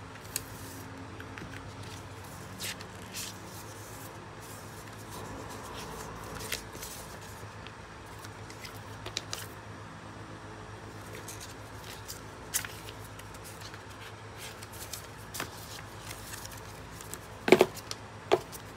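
Paper and card from an iPad Air box being handled: scattered soft rustles and light taps as the documentation sleeve and Apple sticker card are slid out and turned over, with two sharper knocks near the end, over a steady low hum.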